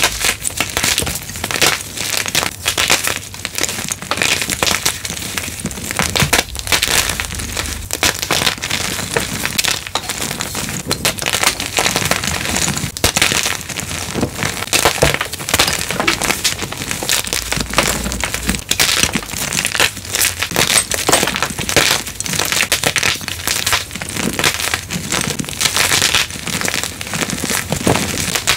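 Blocks of gym chalk being crushed, a continuous run of dense, crisp crunching and crumbling with no pauses.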